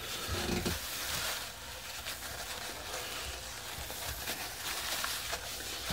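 Paper towel rubbed around a porcelain sink's drain flange, wiping away squeezed-out silicone: a steady rustling hiss.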